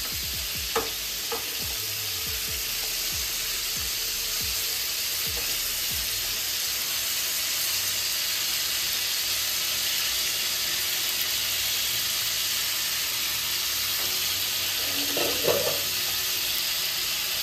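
Whole pointed gourds (potol) sizzling steadily in shallow oil in a nonstick pan, being lightly fried, not browned. A few light spatula knocks in the first few seconds as they are turned.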